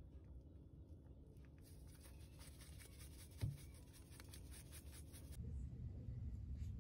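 Dry rub shaken from a spice shaker onto raw chicken in a stainless steel bowl: a faint, fine scratchy rattle lasting a few seconds, with a single dull thump about halfway through.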